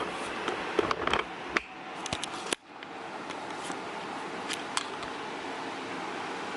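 Close-up handling noise: a quick run of light clicks and knocks from small parts being handled, ending abruptly about two and a half seconds in. Then a steady hiss with two faint ticks.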